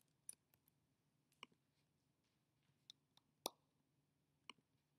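Faint, scattered clicks from a computer keyboard and mouse, about five in all, the loudest about three and a half seconds in, over quiet room tone.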